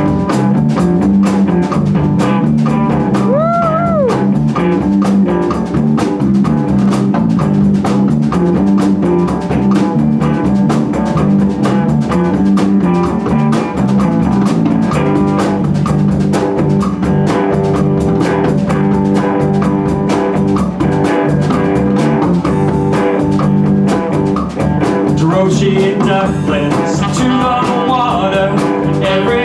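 Live band playing a bluesy rock groove on electric guitars and drum kit. About three and a half seconds in, one note bends up and back down.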